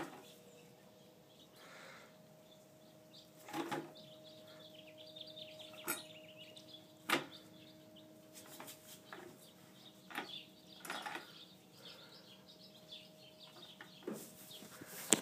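Scattered knocks and scrapes from a plastic bucket stuck around a goat's neck, bumping and dragging on the straw-covered ground as she walks, with faint chirps in the background.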